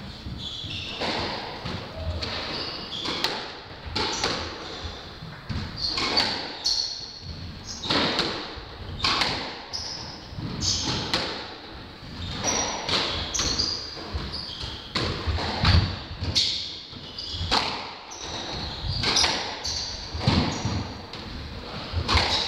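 Squash rally: the ball struck by rackets and smacking off the court walls, one sharp hit after another about once a second.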